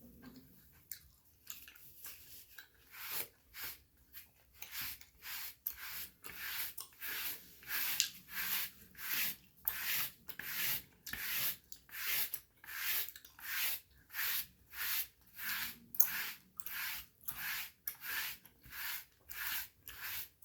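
Dry brushing of skin: a bristle body brush swept over the body in quick, even strokes, about two a second. The strokes come irregularly at first, then settle into a steady rhythm.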